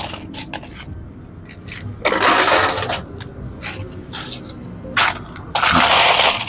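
Quarters clinking as they are fed into a coin pusher machine, with many short metallic clicks. Two louder rattles of coins, each about a second long, come about two seconds in and near the end.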